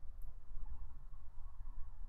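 Room tone in a pause between words: a steady low hum with faint background hiss.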